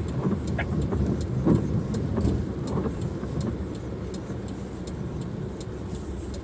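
A car running with a steady low rumble that eases off after about three seconds, with faint ticks repeating a few times a second over it.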